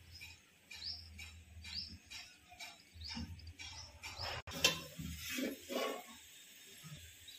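A small bird chirping in the background in short, high, repeated chirps, roughly one every half second to second. A sharp click about four and a half seconds in is followed by a second or so of rustling and handling noise.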